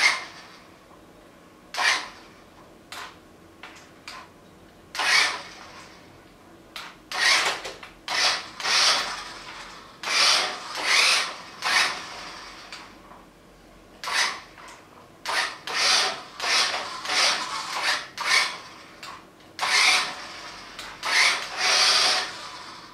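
Rough scraping and rasping noises in irregular bursts, each from a fraction of a second to about a second long, with short quiet gaps between them.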